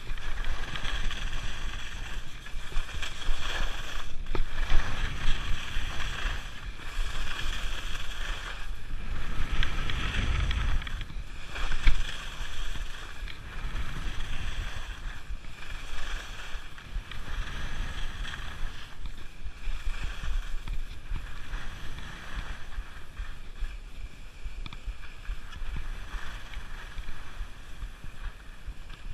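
Skis sliding and scraping over soft spring snow in continuous turns, with wind buffeting the microphone, heaviest about ten seconds in.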